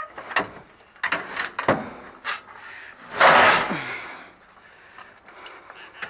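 Scrap aluminum pieces being handled and loaded: a run of knocks and clanks, then a longer, louder sliding scrape about three seconds in.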